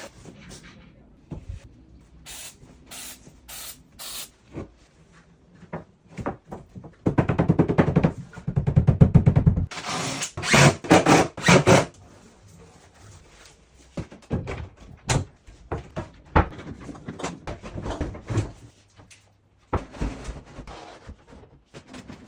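Fitting work on a kitchen filler panel: scattered knocks, clicks and taps, with a louder stretch of rapid rattling around the middle.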